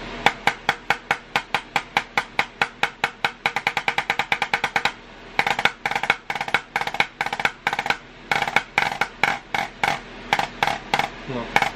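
Drumsticks playing on a Xymox Ultra Reserve snare practice pad: a run of strokes that speeds up into a fast roll, a short break about five seconds in, then further sticking patterns separated by brief pauses.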